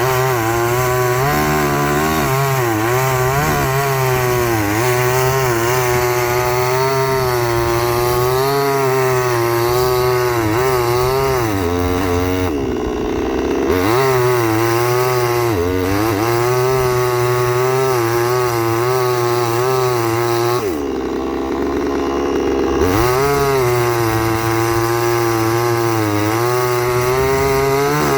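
Chainsaw running at high revs under load, cutting wood, its pitch wavering as it bogs in the cut. Twice, about halfway through and again about three-quarters through, the throttle drops to idle for a second or two before revving back up.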